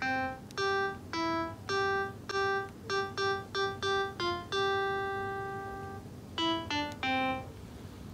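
A simple tune played one note at a time on a piano keyboard app, with no chords: notes about two a second, quickening, and one long held note about halfway through.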